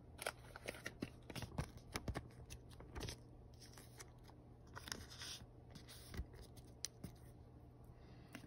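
Faint, scattered clicks and scrapes of trading cards and clear plastic card sleeves being handled.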